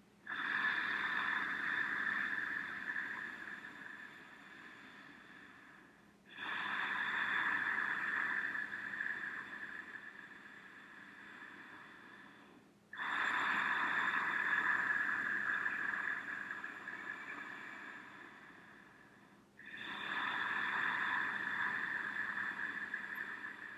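A woman doing Ujjayi pranayama: four long, slow breaths drawn through a narrowed throat, about one every six and a half seconds. Each starts abruptly and fades away.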